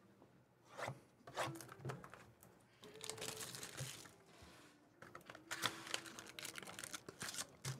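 Plastic wrap being torn and crinkled off a sealed Bowman Sterling trading-card box as it is opened by hand, with scattered clicks and taps from handling the box. A tearing hiss comes about three seconds in, and dense crinkling fills the last few seconds.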